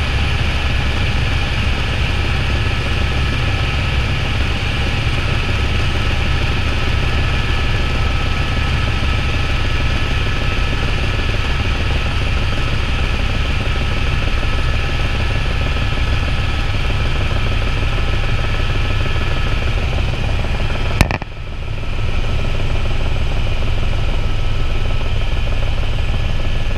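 Helicopter cabin noise in flight: a steady rotor and engine drone with a steady high turbine whine over it. About three quarters of the way through comes one sharp click, after which the noise dips briefly and returns.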